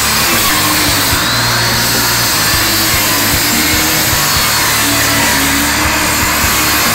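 Corded circular saw running steadily under load while cutting through the roof decking, with a slight shift in the pitch of its whine a second or two in.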